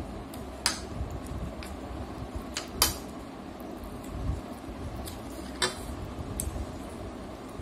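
Metal spoon clinking and scraping against a ceramic plate of fried rice, with several sharp clinks. The loudest comes a little under three seconds in.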